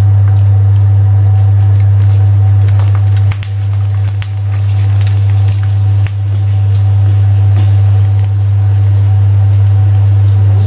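Onion rings deep-frying in a kadai of hot oil: the oil sizzles with scattered fine crackles. Under it runs a loud, steady low hum, which dips briefly about three seconds in and again about six seconds in.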